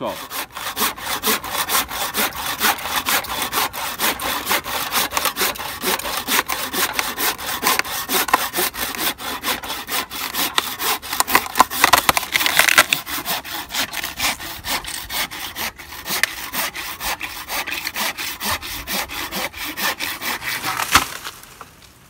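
Handsaw cutting through a dead, fire-killed branch with rapid, steady back-and-forth strokes; the sawing stops about a second before the end.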